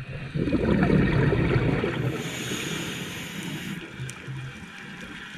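Scuba diver breathing through a regulator underwater: a loud low burst of exhaled bubbles over the first two seconds, then the hiss of an inhalation through the regulator.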